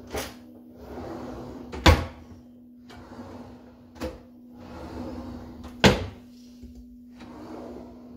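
Kitchen drawers on metal runners being slid open and shut one after another, each slide ending in a sharp knock, four knocks in all about two seconds apart. A steady low hum runs underneath.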